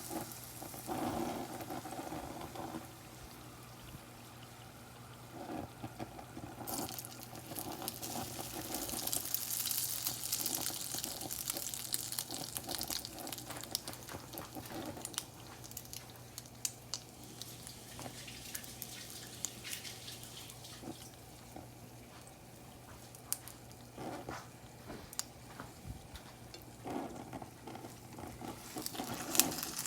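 Hot oil in a deep fryer sizzling and crackling, with many small pops. It is loudest about a quarter to halfway through and again near the end, over a steady low hum.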